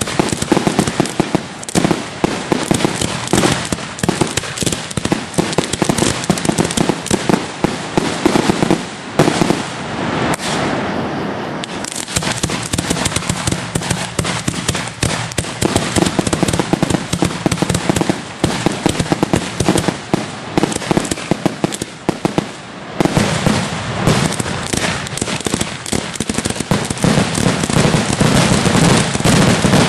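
Fireworks display in a dense, continuous barrage of shells launching and bursting, a rapid run of booms and cracks, heard from the firing site. The barrage thins briefly about ten seconds in and again after twenty seconds, then builds back up.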